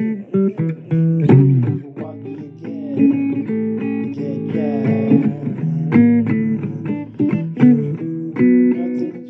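Instrumental passage of a blues recording: guitar playing single plucked notes over a bass line, some notes bending in pitch.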